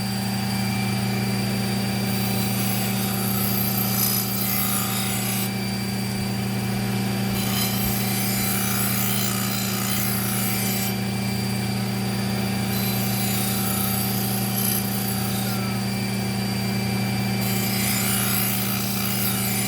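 Knife blade stroked along the leather honing belt of a Work Sharp Ken Onion Elite sharpener, stropping a sticky burr off the edge: a steady motor hum, with four hissing passes of the blade lasting a few seconds each.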